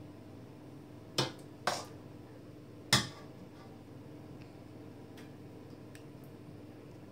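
Metal soup ladle clinking against a stainless steel pot and a glass bowl while serving soup: two sharp clinks about a second in, half a second apart, and a louder one about three seconds in, followed by a few faint ticks.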